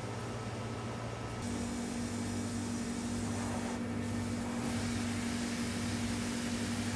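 Steady mechanical hum of workshop machinery. The pitch and mix change abruptly about a second and a half in, when a stronger steady tone comes in.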